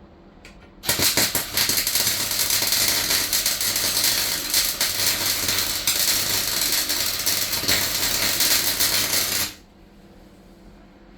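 Welding arc crackling steadily for about eight and a half seconds as a weld is laid on the van's steel floor. It starts about a second in and stops abruptly near the end.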